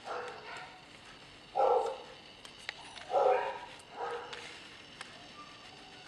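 Four short, bark-like animal calls, the second and third much louder than the others, with a few faint clicks between them.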